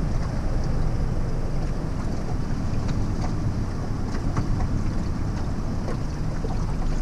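Steady wind buffeting the microphone on an open boat at sea, a low rumble with faint scattered clicks and knocks.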